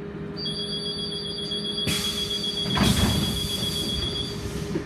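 Inside a moving Škoda 14Tr08/6 trolleybus: a steady electrical hum, joined shortly after the start by a high, steady electronic whistle that stops near the end. About three seconds in there is a short, louder rushing rattle.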